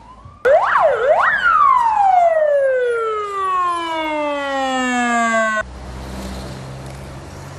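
Police car siren: two quick rising-and-falling wails, then one long wail that falls steadily in pitch and cuts off abruptly about five and a half seconds in. After it comes a low steady rumble.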